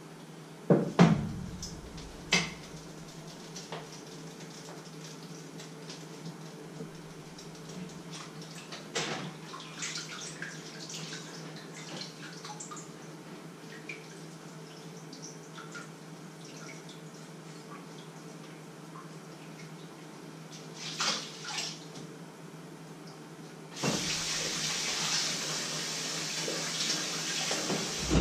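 Kitchen clatter of pots and utensils being handled: a couple of sharp knocks about a second in, then scattered clinks. About 24 s in, a kitchen tap starts running steadily into the sink.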